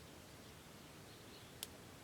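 Near silence with faint high chirps, and one sharp click about one and a half seconds in.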